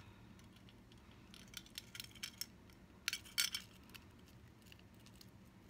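Light metallic clicks and clinks of pliers on a small steel jump ring and keychain chain as the ring is twisted open: a few faint ticks, then louder clinks about three seconds in.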